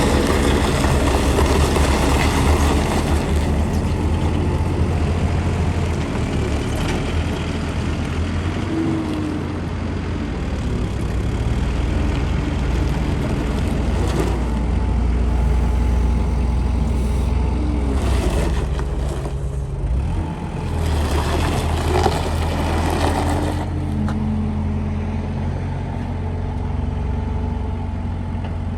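Kubota diesel engine of a 2005 Thomas skid steer running, its engine speed changing a few times, with louder, noisier passages partway through.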